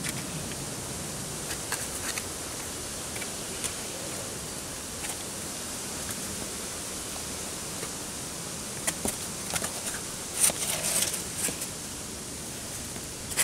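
Steady hiss of the outdoor background with scattered short scuffs and taps, bunched from about nine to eleven and a half seconds in and loudest around ten and a half seconds: a climber's shoes and hands on a sandstone boulder as he moves up and tops out.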